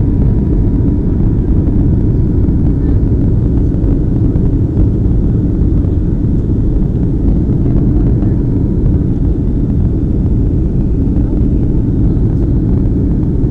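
Steady low cabin rumble of a Boeing 757's jet engines and airflow during the climb after takeoff, heard from inside the passenger cabin.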